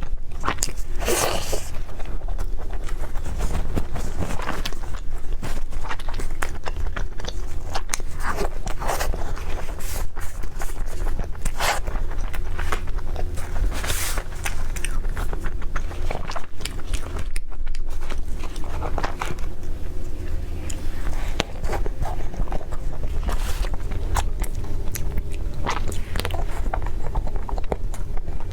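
Close-up eating sounds: irregular bites and chewing, with scraping and crunching.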